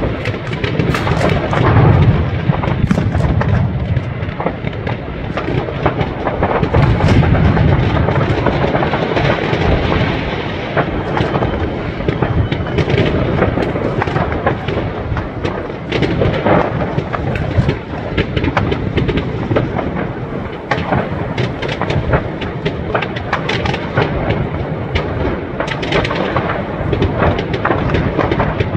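New Year's Eve fireworks going off all over the city at once: a continuous deep rumble of distant booms with dense, sharp bangs and crackling throughout.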